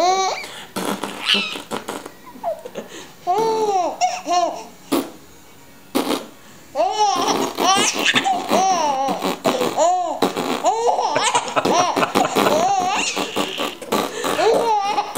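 A young baby laughing hard in repeated bursts of high, squealing giggles, with a short pause about five seconds in, then laughing almost without a break.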